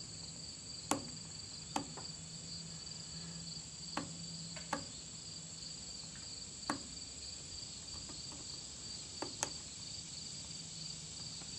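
A steady, high insect chorus, with a handful of sharp clicks at irregular intervals over it.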